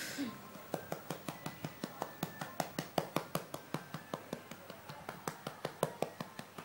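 A hand patting a baby's back in a quick, steady rhythm, about four to five pats a second.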